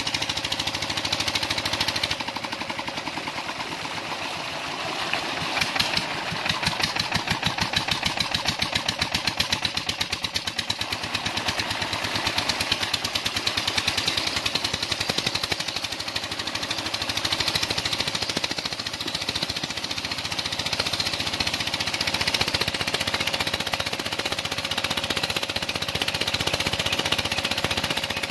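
Stationary diesel engine running a water-lift pump with a rapid, even beat, and water gushing from the outlet pipe into a tank of water with a steady splashing rush.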